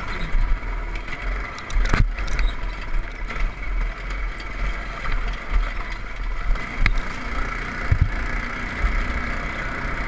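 Off-road go-kart's small engine running steadily under way, with the frame rattling over rough ground. A few sharp knocks from bumps, the loudest about two seconds in and two more near the end.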